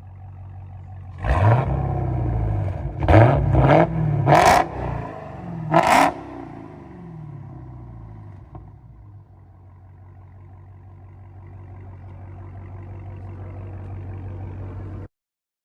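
Supercharged Hellcat V8 running through a muffler-delete exhaust, idling, then blipped hard about five times in quick succession before settling back to idle. The sound cuts off abruptly near the end.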